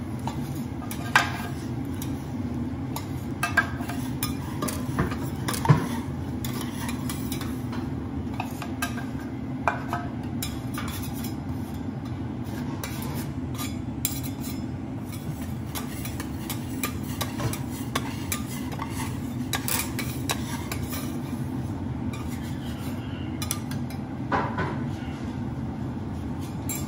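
Metal spatula and knife scraping and tapping on a steel teppanyaki griddle, with sharp clinks now and then over a steady low hum. The chef is scraping off minced fat after its flavour has been cooked into the griddle.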